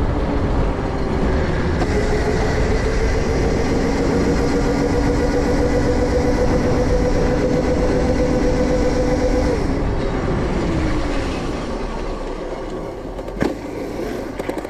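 Razor MX650 electric dirt bike riding: the electric motor's steady whine over the rumble of the ride, rising slightly in pitch and holding, then winding down about ten seconds in as the bike slows, with a few sharp clicks near the end.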